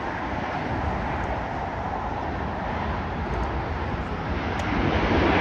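Jet engines of a Boeing 737 on its landing roll: a steady, even noise that grows louder near the end, mixed with wind on the microphone.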